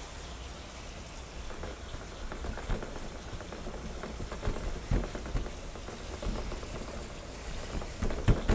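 Soft, irregular pats and taps of hands pressing and stretching Neapolitan-style pizza dough on a metal table, over a faint steady outdoor background.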